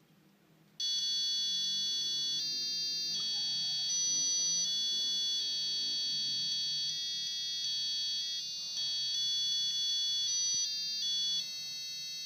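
Piezo disc sounder driven by a microcontroller playing a melody: a string of buzzy, electronic beep notes, one steady pitch after another, starting about a second in and stopping near the end.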